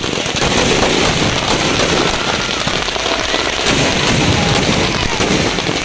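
Firecrackers inside a burning Ravana effigy going off in a dense, continuous crackle of rapid pops.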